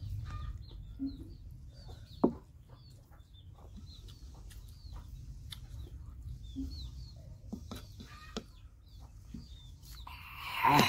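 Close-up eating sounds from people eating with their hands, with scattered small clicks and smacks, one sharp click about two seconds in and a louder rush of noise near the end. Small birds chirp repeatedly in the background.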